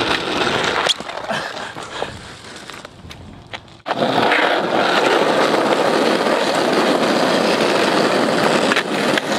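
Skateboard wheels rolling on asphalt: a steady rough rumble with a few sharp clicks early on. It fades over the first few seconds, then comes back louder and stays steady from about four seconds in.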